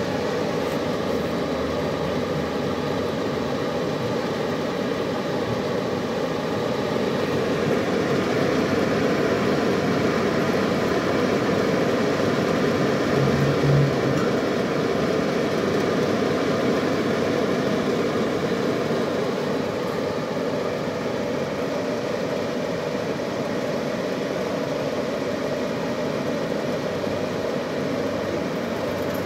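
A programmed pipe-profiling machine's cutting torch cutting circular holes in a steel pipe: a steady rushing hiss over machine hum, with a brief low tone about halfway through.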